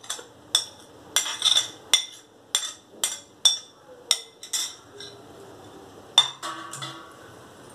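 A metal spoon clinking against a plate and a glass bowl as diced cucumber is scraped off into the bowl. There is a quick series of sharp, ringing clinks, about two or three a second, over the first five seconds, then a few more about six seconds in.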